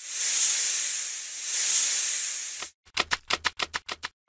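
Edited-in sound effects: a loud hiss rising and falling in two swells, then a quick run of sharp crackling clicks, about eight a second. The clicks come as a glowing, electric-looking effect appears on the screen.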